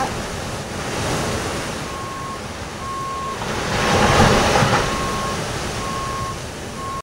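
Vehicle backup alarm beeping about once a second, a single steady high tone, starting about two seconds in. It sounds over a steady rush of surf that swells louder about four seconds in.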